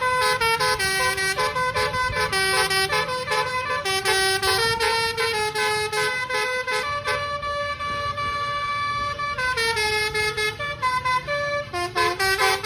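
Multi-tone telolet air horn on a UD Trucks Quester truck playing a fast tune of changing chords, holding one chord for a couple of seconds a little past the middle, over low vehicle rumble.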